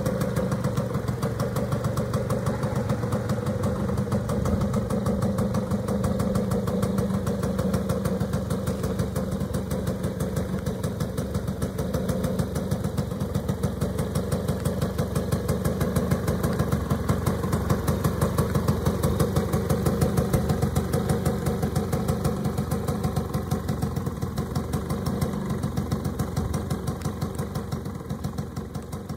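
Honda EZ-9 mini bike's small two-stroke engine idling steadily on its stand, its exhaust pulsing evenly. The sound fades out near the end.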